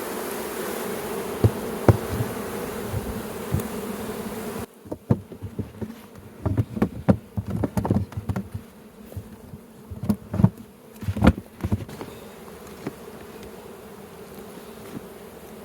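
Honeybees buzzing in a steady hum around an opened hive, with a few clicks. About five seconds in the hum drops abruptly, and a run of knocks and bumps follows as the hive is handled and closed up, then the buzzing goes on more quietly.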